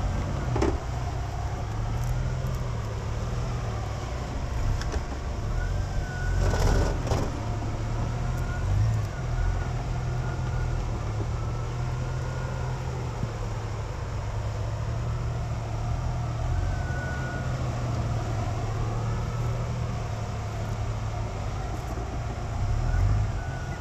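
Jeep Cherokee XJ engine running steadily at a slow off-road crawl, a low drone throughout. A brief louder rush of noise comes about six to seven seconds in.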